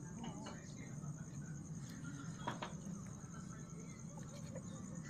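Crickets chirping in a steady, fast-pulsing high trill, over a low hum, with a few faint puppy whimpers near the start and one sharp click about halfway through.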